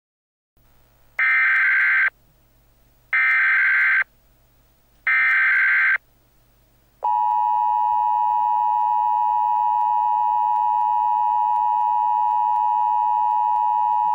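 Emergency Alert System header: three identical short bursts of buzzy data tones about two seconds apart. About seven seconds in, the long steady EAS attention tone starts, signalling that an alert message follows.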